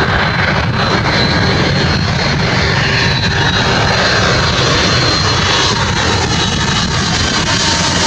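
Airbus A310 jet airliner on final approach with its landing gear down, passing low: a loud, steady jet-engine rumble with a thin high whine on top.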